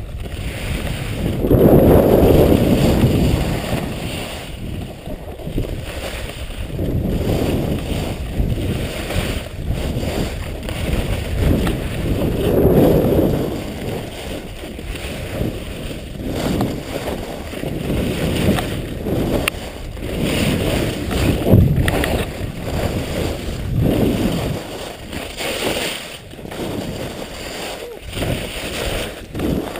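Wind buffeting a body-worn microphone while skiing downhill, with snow scraping underfoot, swelling and easing every two to three seconds with the turns.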